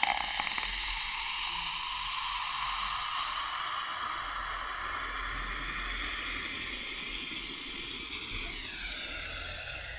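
Cola poured from a can over ice into a glass mug, with a steady fizz of carbonation that eases off slightly near the end.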